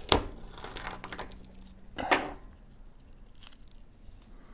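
A knife cutting into a dried beaver castor sac (castoreum gland): a sharp crack as the blade goes in, followed by about a second of crackly tearing. A second crunchy tear comes about two seconds in as the dry sac is pulled apart, and a faint click near the end.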